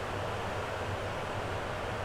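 Electric fan running at a constant speed: a steady rush of air with a low, even hum underneath.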